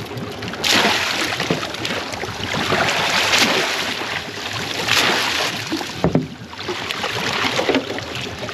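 Water splashing and streaming off a collapsible mud crab pot as it is hauled up out of the water over the side of a small boat, coming in several louder surges.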